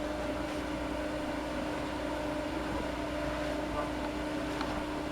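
Steady mechanical hum, a constant low tone with a fainter one an octave above it, over a soft even noise.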